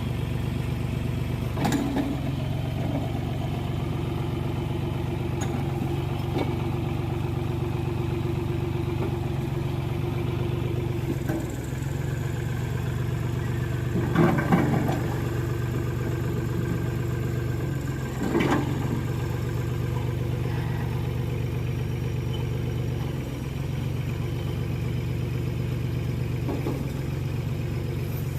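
Ford 3500 backhoe's diesel engine running steadily, with a few clanks and knocks, the loudest about halfway through and again a few seconds later.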